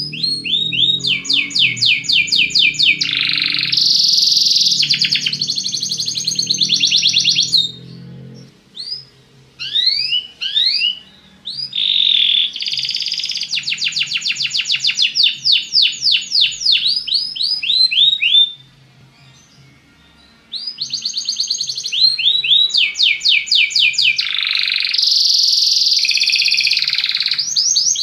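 Domestic canary (Belgian canary) singing in long phrases of rapid repeated notes and trills, with two short pauses, one about a third of the way in and one past the middle.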